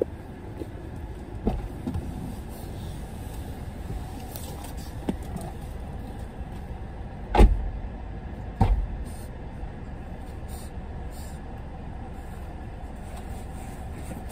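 Steady low rumble of a car engine idling in park, heard inside the cabin. Midway come two loud thuds about a second apart, with a smaller knock earlier.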